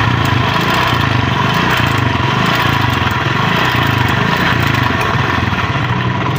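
Chinese 70cc single-cylinder motorcycle engine of the Honda CD70 type idling steadily, with a light rattle from inside. The mechanic likens the rattle to a loose timing chain and suspects the chain or its tensioner rod.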